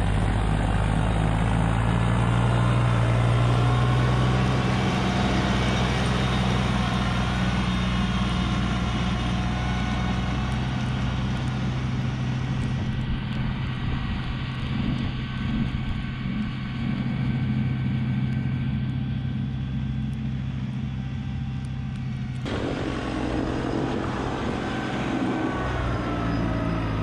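Kubota LX2610 compact tractor's three-cylinder diesel engine running steadily under load while its LX2980 front snowblower throws snow. About three-quarters of the way through, the sound changes suddenly to a fuller, closer engine-and-blower noise.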